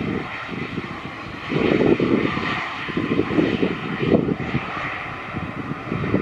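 Airbus A220's Pratt & Whitney PW1500G geared turbofans running as the jet rolls out along the runway after touchdown, spoilers raised. There is a steady whine over an uneven rumble that rises and falls.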